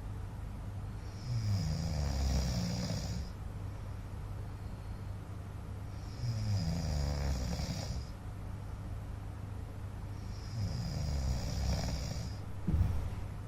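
A man snoring: three snores of about two seconds each, roughly four and a half seconds apart. A short thump comes near the end.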